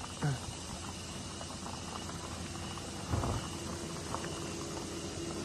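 An off-road vehicle's engine running with a steady drone over rough outdoor background noise, with two dull thumps, one right at the start and one about three seconds in.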